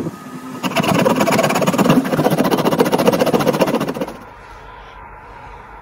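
Hand saw rasping back and forth through a grey plastic pipe coil former, cutting its top off. The sawing stops abruptly about four seconds in.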